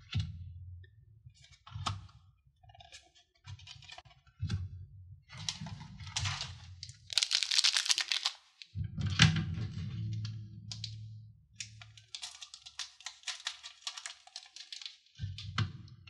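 Trading cards being handled and laid down with light clicks, then a foil booster pack crinkling as it is handled and cut open with scissors. There is a louder rustling burst about halfway through and dense crinkling near the end.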